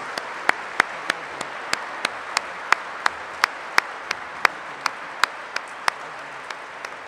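Audience applauding in a steady patter, with one person clapping close to the microphone in sharp, even claps about three a second. The close claps thin out near the end.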